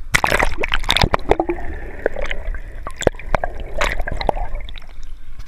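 Seawater splashing and gurgling around an action camera dipped in and out of the sea at the surface, with many irregular sharp slaps and sloshes.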